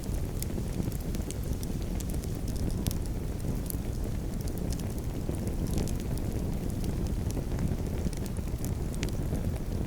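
Campfire burning, with a steady low rumble and frequent sharp crackles and pops of burning wood.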